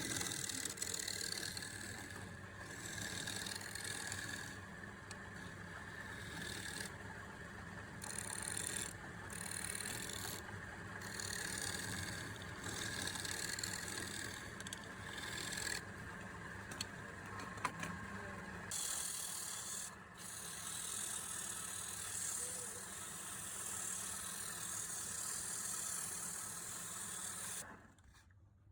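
Wood lathe running with a steady motor hum while a turning tool cuts the spinning wood, the hiss of the cut coming and going. It all stops abruptly near the end.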